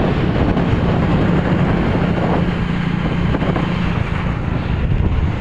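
Steady drone of the vehicle the camera rides on, with a steady low engine hum under road noise and wind buffeting the microphone.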